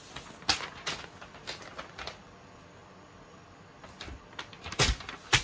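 Sheets of paper rustling and snapping as hand-held signs are picked up and turned: a scatter of short, crisp rustles, with the sharpest ones near the end.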